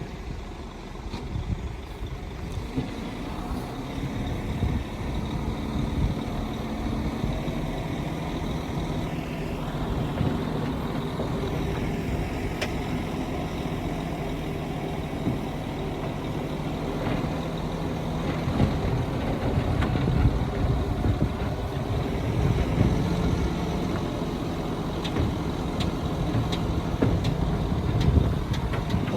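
Heavy diesel earthmoving machinery running steadily, its engine note holding at a steady pitch, with a few light knocks.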